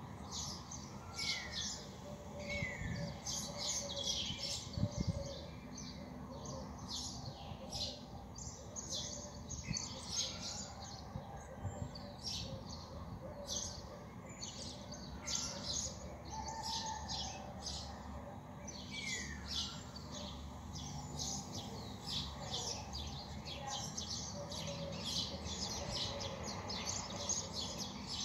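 Many small birds chirping in a dawn chorus: dense, overlapping short chirps with a few brief falling whistles, over a steady low background rumble.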